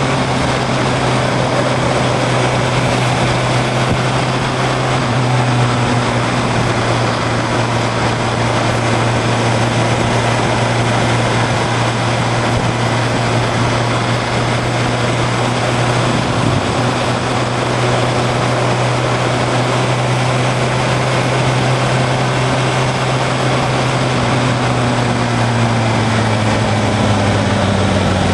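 Engine of the camera-carrying vehicle running steadily at cruising speed over wind and road noise, dipping briefly about halfway through; near the end the pitch falls as it slows down.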